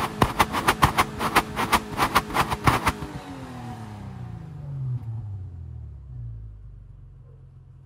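Mitsubishi Pajero's 3.8-litre 6G75 V6 heard at the tailpipe, held at raised revs, then let off the throttle so the revs fall away and settle into a steady idle. A loud, regular beat of sharp knocks, about three a second, runs over the raised revs for the first three seconds and stops as the revs start to drop.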